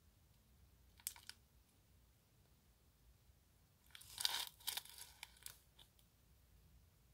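Small clear plastic bag of glitter crinkling as it is handled: a short crackle about a second in, then a longer burst of crinkling from about four to five and a half seconds in.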